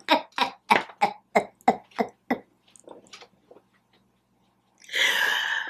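A person laughing: a run of short breathy bursts, about three a second, fading out over a couple of seconds, then a long breathy exhale near the end.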